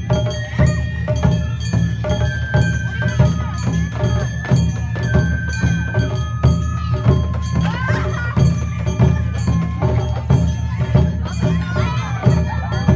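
Japanese festival music played live: a bamboo flute carries a melody of held notes over steady drumming and percussion that keeps a regular beat.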